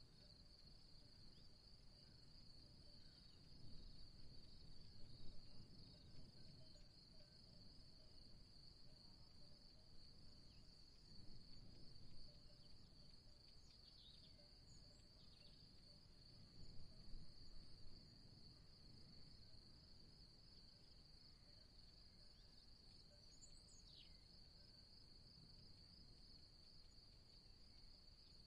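Faint, steady high-pitched trilling of insects, with a few soft low rumbles and a couple of brief faint chirps.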